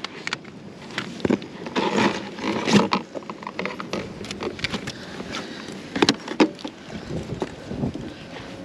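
Irregular knocks and clicks of handling gear aboard a small fishing skiff, over a steady hiss.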